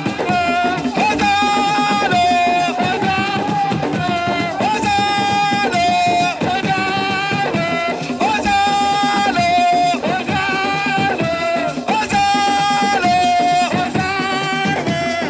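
Music: a melody of held, repeating notes over drums and percussion.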